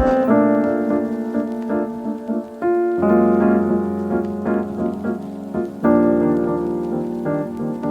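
Background piano music: slow, held notes and chords, with new chords about three seconds and six seconds in.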